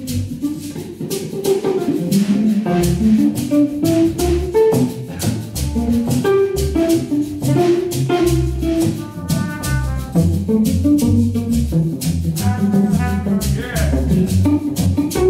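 Live jazz trio playing: drum kit with steady cymbal and drum strokes, a guitar carrying low bass notes and a melodic line, and a brass horn coming in with short phrases in the second half.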